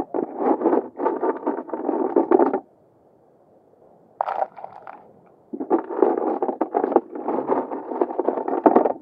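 Bursts of scraping, rustling noise that stop for about a second and a half near the middle, with one short sharp clatter about four seconds in, around the time more mussels are added to the pot.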